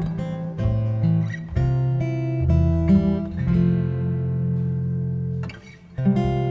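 Live ambient instrumental music: an acoustic guitar's plucked chords ring over sustained acoustic bass notes. The music thins out for about half a second near the end, then comes back in.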